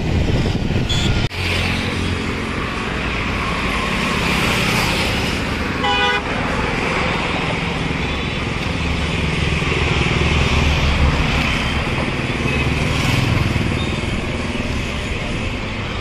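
Busy road traffic, with motorcycle and car engines running in a continuous din. A vehicle horn toots briefly about six seconds in.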